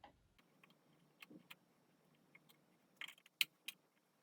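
Faint, scattered clicks and light scrapes of a screwdriver backing the screws out of a wall light-switch plate, with a few sharper metallic clicks about three seconds in.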